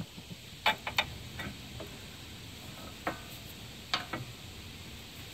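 Sharp metal clinks and knocks from a loosened stabilizer (sway bar) end link and its washers as it is worked off its stud and pulled free of the sway bar: a quick run of clicks about a second in, then single knocks near three and four seconds.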